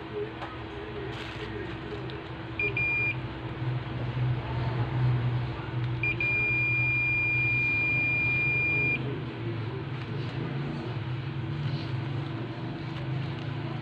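Fluke 116 multimeter's continuity beeper, sounding as the test probes touch points on a TV power supply board. It gives two quick chirps, then a steady beep held for about three seconds, over a constant low background hum.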